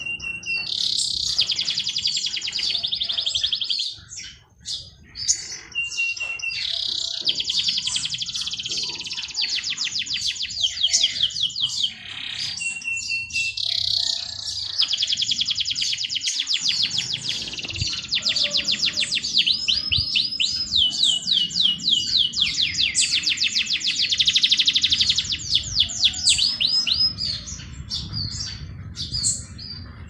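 Songbirds singing in long runs of fast, rapidly repeated trilling notes. The runs are broken now and then by a short, steady high whistle, and curved, falling notes come in later.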